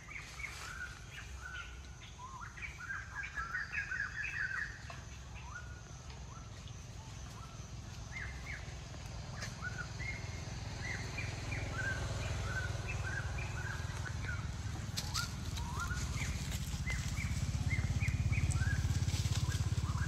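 Small birds calling in forest: many short, high chirps in loose clusters, busiest in the first few seconds and again from about ten seconds in. Under them a low rumble grows louder toward the end.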